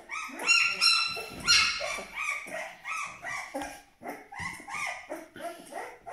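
A 12-day-old Aksaray Malaklı puppy whining in a run of short, high cries, two or three a second, loudest in the first second and a half.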